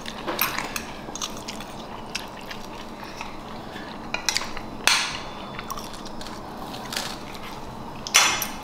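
Metal fork and spoon clinking and scraping on a ceramic dinner plate as someone eats, a scattering of short clinks, the loudest about five seconds in and near the end.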